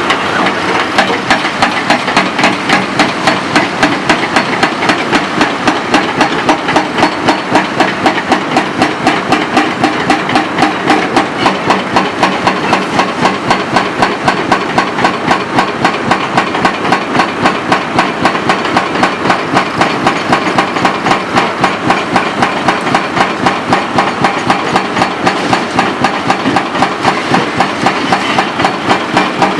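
Dehaco IBEX 4000GS hydraulic hammer on a Komatsu PC490-10 excavator breaking material in a steady, rapid rhythm of blows, about three to four a second, with the excavator's diesel engine running underneath.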